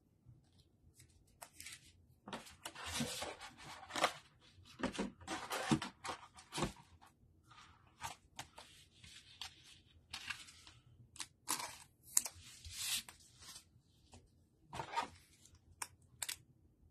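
Crinkling and rustling of a thin plastic card sleeve and a rigid plastic top loader handled in gloved hands as a trading card is slid into them, in irregular short bursts with a few sharp clicks.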